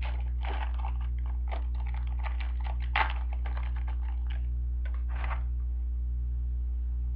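Trading cards being handled, sorted and set down on a table: a run of small clicks and rustles, with a sharper tap about three seconds in and a longer rustle about five seconds in. A steady low electrical hum runs underneath.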